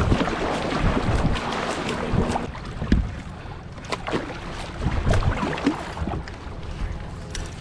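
Kayak moving fast across choppy water, with irregular splashes and water slapping against the hull. Wind rumbles on the microphone underneath.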